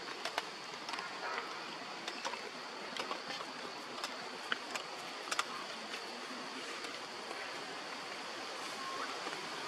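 Outdoor forest ambience: a steady hiss with a faint, high, steady drone, broken by scattered sharp clicks and ticks.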